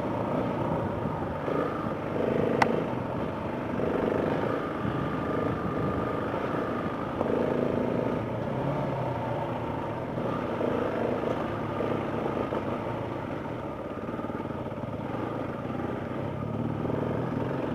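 Dirt bike engine running while riding a dirt trail, its note rising and falling with the throttle. A single sharp click comes about two and a half seconds in.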